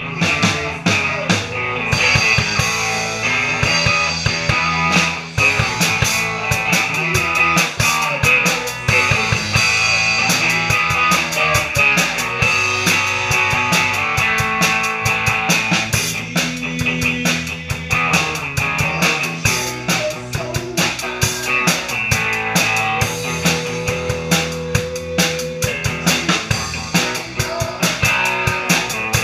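A rock band playing live, with the drum kit and its Zildjian cymbals loudest and closest, under electric guitar and bass guitar.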